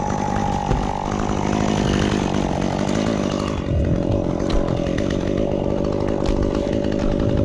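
Stihl chainsaw running at high revs while cutting pine, its pitch dropping about halfway through and holding lower.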